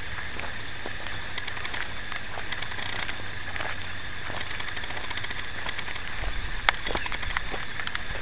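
Steady outdoor background hiss with scattered faint clicks and crackles over a low hum, with one sharper click about two-thirds of the way through; no speech.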